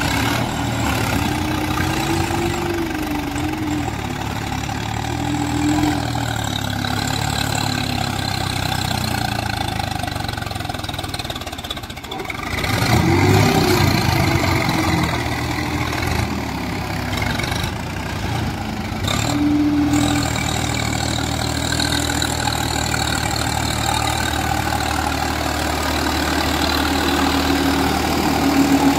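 Diesel tractor engine running and revving, its pitch rising and falling again and again, with a louder surge about halfway through.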